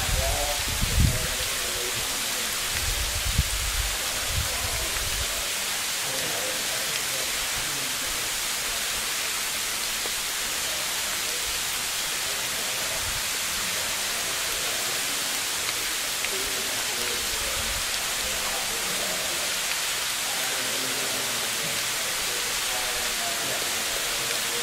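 Steady outdoor hiss, with low rumbling thumps during the first four seconds.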